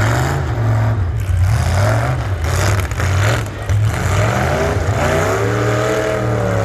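Truck engine running, with the engine pitch rising and falling again in a rev near the end.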